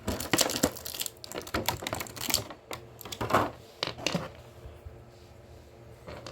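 Irregular clicking and tapping of hard plastic as an action figure is worked free of its plastic packaging, dense for about four seconds, then fading to quieter handling.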